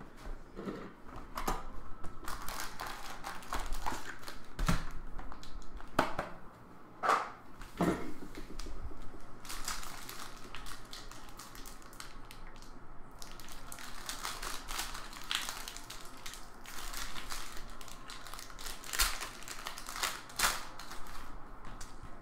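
Foil trading-card packs crinkling and crackling as they are handled and torn open, with a string of small irregular clicks and rustles.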